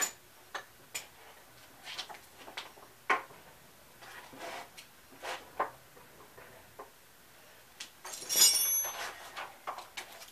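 Hand tools clinking and tapping on metal in scattered light strikes, with a louder rattle about eight seconds in.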